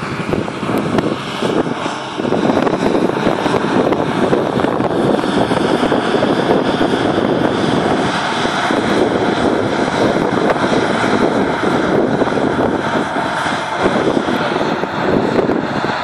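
Deutz-Fahr combine harvester running steadily while cutting and threshing standing wheat: a steady, even drone of engine and machinery.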